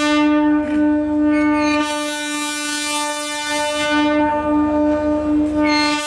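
Horn of an arriving DEMU diesel train held in one long, steady blast.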